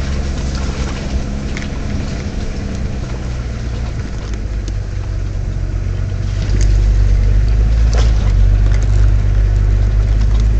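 Diesel engine of a Nissan Patrol GR Y60 running while driving, heard from inside the cab, with a steady low hum that gets clearly louder about six and a half seconds in. A few short knocks sound over it.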